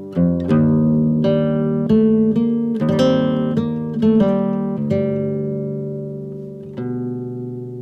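Background music: acoustic guitar notes and chords plucked one after another, each left to ring and die away, with a longer ringing chord near the end.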